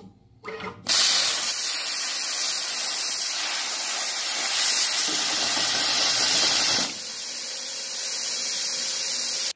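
Hypertherm Powermax85 plasma torch piercing 1-inch steel plate, thicker than it is rated to pierce: a short burst as the arc starts, then a loud steady hiss for about six seconds. The hiss drops to a quieter level and then cuts off suddenly when the machine is stopped, the pierce not having gone all the way through.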